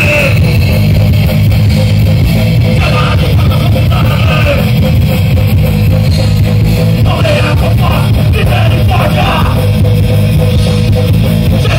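Rock band playing live and loud: electric guitars and drums, with a singer's voice coming in at times. A steady held note runs under the band throughout.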